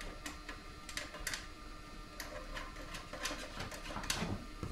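Irregular light clicks and taps as a DVD drive is nudged about in a PC case's metal drive bay to line up its screw holes.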